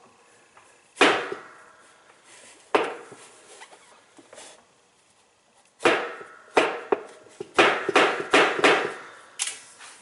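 Sharp knocks against a washing machine washplate that is fused onto the transmission shaft, each with a short ringing decay: two single knocks in the first three seconds, then a quick run of about seven from about six seconds in. The plate does not come free.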